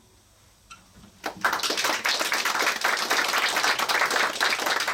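A brief hush, then an audience breaks into applause about a second in, many hands clapping steadily.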